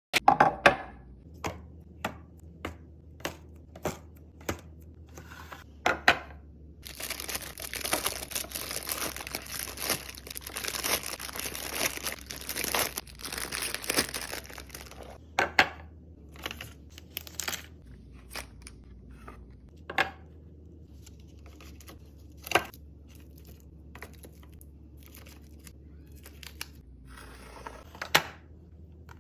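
Sharp clicks and knocks of items being handled and set down, with several seconds of packaging crinkling and tearing around the middle.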